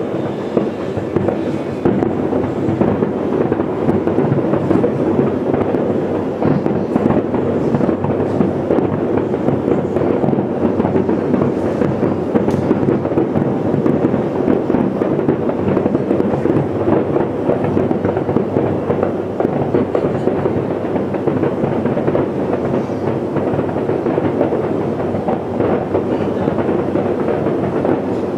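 Aerial firework shells bursting in a fireworks finale barrage: a dense, continuous rumble of overlapping bangs and crackles without a pause.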